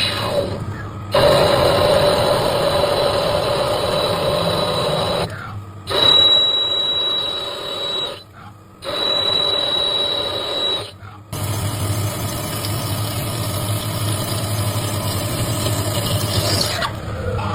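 CNC machine cutting a part: a steady machining noise with a high, steady whine in some stretches. It comes in several short takes that break off abruptly and start again.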